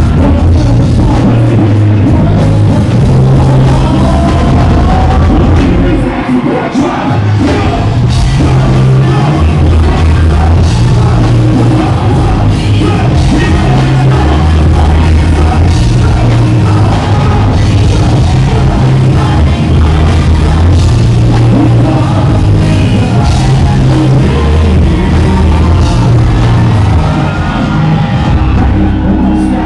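Live rap performance through a loud club PA: a rapper's vocals over a backing track with a heavy bass line and a steady beat. The bass drops out briefly about six seconds in.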